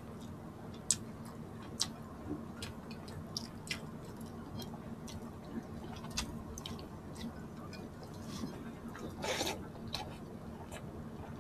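Quiet mouth sounds of someone eating sinigang with salmon head: scattered soft chewing clicks and smacks, with a slightly longer, louder one about nine seconds in, over a faint low hum.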